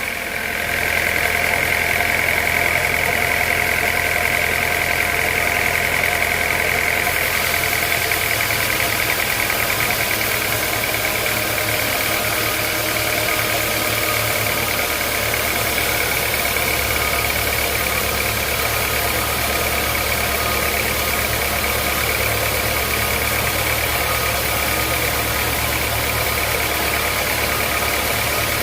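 Sawmill machinery running steadily: a continuous low engine hum with a steady high whine over it.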